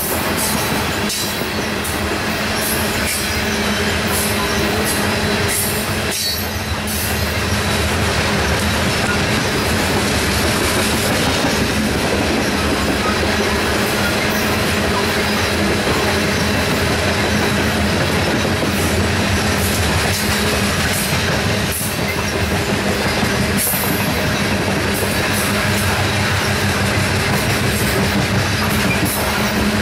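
Loaded coal hopper cars rolling past: a steady, loud rumble of steel wheels on rail, with irregular clicks throughout.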